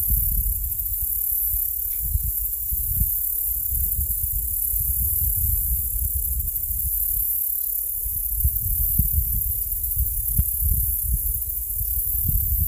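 Wind buffeting the microphone: an uneven low rumble that rises and falls in gusts, over a steady faint high hiss.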